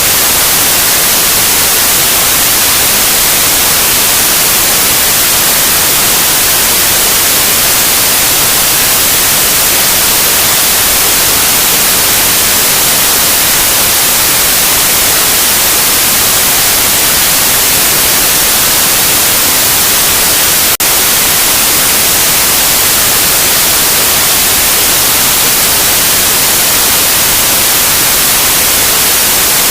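Loud, steady white noise: an even hiss with no tone or rhythm in it. A single brief click cuts through it once, about two-thirds of the way through.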